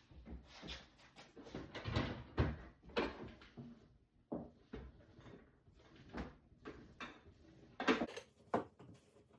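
Refrigerator interior being scrubbed clean: irregular rubbing strokes and light knocks against the plastic walls and shelves, with the loudest knocks about two to three seconds in and again near the end.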